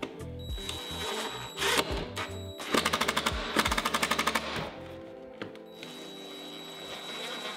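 Cordless DeWalt impact driver driving screws into the deck: a short burst about a second and a half in, then a rapid hammering rattle lasting about two seconds, under background music.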